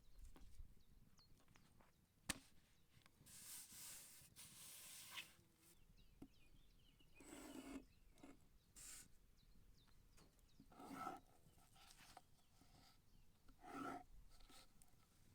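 Faint rubbing and scraping strokes of fresh pasta dough being worked by hand, with a sharp tap about two seconds in. A few short pitched sounds come in the second half.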